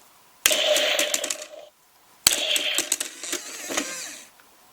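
Electronic toy shooting target's plastic plates and small motor-driven mechanism clattering and whirring in two bursts. Each burst starts with a sharp click: one about half a second in, the other a little past two seconds, lasting about two seconds.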